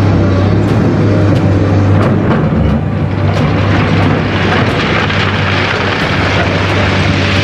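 Komatsu hydraulic excavator's diesel engine running steadily with a deep hum, while its steel bucket digs into a pile of crushed stone. About halfway through, a rough scraping and clattering of stones against the bucket grows louder.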